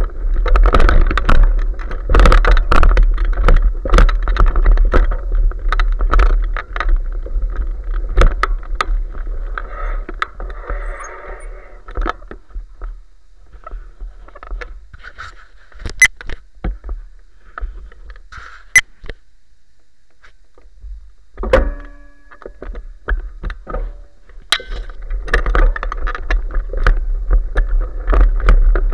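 Bicycle ridden over a trail of dry fallen leaves: a rattling rumble full of sharp clicks and knocks. About 12 s in it thins out to scattered clicks, with a brief squeak a little past 21 s. The rattling rumble returns about 25 s in.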